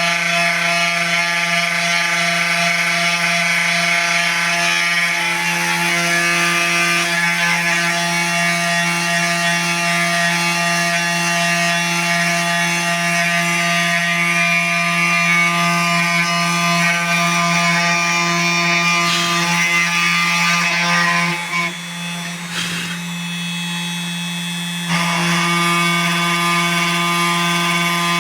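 CNC 3018 desktop engraver running a test job: a steady machine whine made of many even tones. It drops quieter for about three seconds near the end, then comes back at full level.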